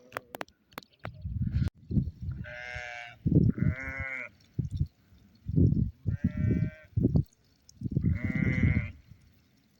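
A sheep bleating four times, each bleat a quavering call of under a second, over low rumbling noise.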